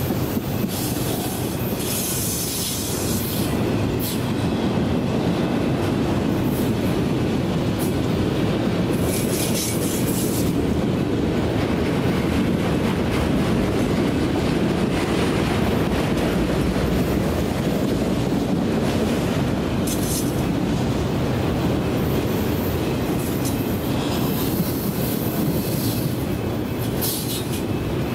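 Freight train of autorack cars rolling past: a steady rumble of steel wheels on rail, broken every several seconds by brief high-pitched wheel squeals.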